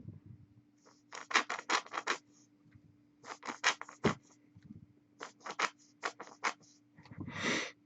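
Quick, sharp scratching strokes in three bursts of five or six, each burst about a second and a half long. A longer rustling scrape comes near the end. A steady low hum runs underneath.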